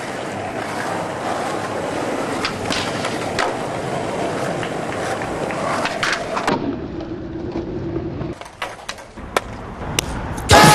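Skateboard wheels rolling on street pavement, with several sharp clacks of the board popping and landing. About two-thirds of the way in the rolling turns duller, and music starts right at the end.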